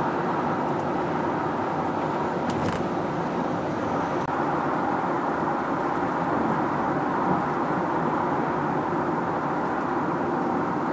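Steady road and tyre noise inside the cabin of a Honda Freed+ Hybrid cruising at about 80 km/h.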